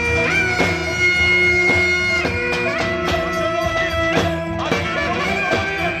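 Live Roman havası dance music: a clarinet plays long held and bending notes over drum beats.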